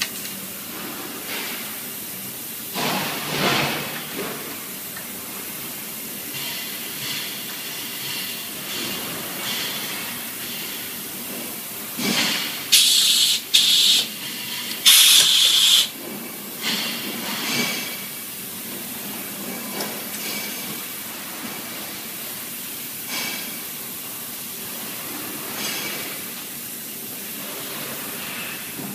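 Welding jig's pneumatic clamps: three short, loud blasts of hissing air in quick succession about halfway through, with a few smaller hisses, over a steady background hiss.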